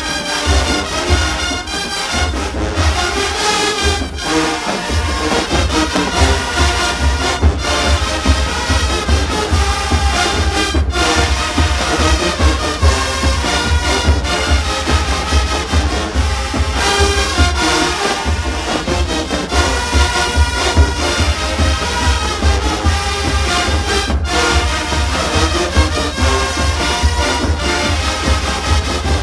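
Marching band playing loudly, brass carrying the tune over a heavy, steady low end of drums and bass horns.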